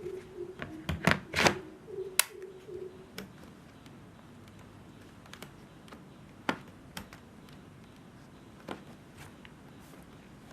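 Sharp clicks and knocks, a quick cluster in the first three seconds, then a few single clicks spaced out over the rest, over a low background.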